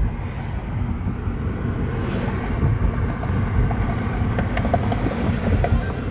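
Car cabin noise while driving: a steady low rumble of engine and tyres on the road, with a few faint ticks in the second half.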